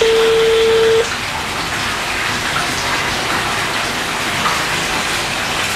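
Phone ringback tone over speakerphone: one steady single-pitched beep about a second long at the start, then a steady hiss while the call rings unanswered.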